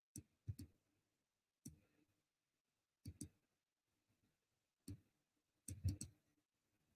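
Faint clicks and light taps in six short clusters, one or two strokes each, spaced a second or two apart, over near silence.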